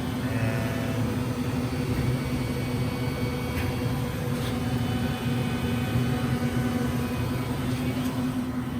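Steady machinery hum with a constant low tone and a few faint clicks.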